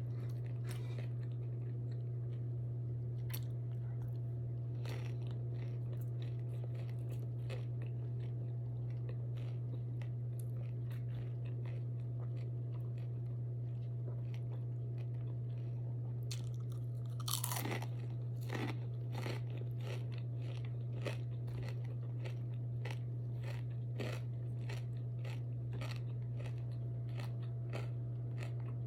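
A person chewing and crunching on crisp fried food, with many small crunches and a louder cluster of bites a little past the middle, over a steady low electrical hum.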